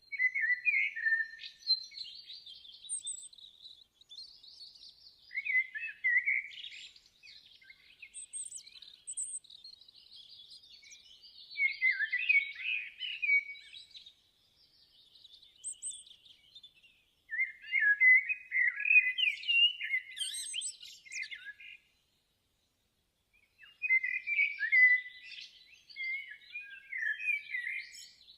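Small birds chirping and twittering in quick warbling phrases, in bursts with short pauses between them.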